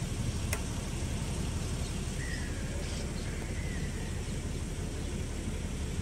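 Steady outdoor background rumble, heaviest in the low end, with a single click about half a second in and two faint short bird chirps around two and three seconds in.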